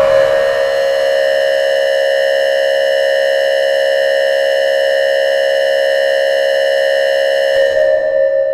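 Emergency Alert System alert tone on a cable TV feed: one loud, steady, buzzy electronic tone with many overtones, held without a break and thinning near the end.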